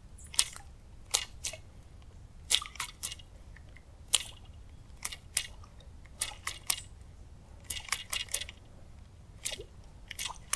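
Slow twitch-and-reel retrieve of a Lizard Fishing Buster topwater stick lure: short, sharp clicks and ticks in small clusters of one to three, roughly one cluster a second.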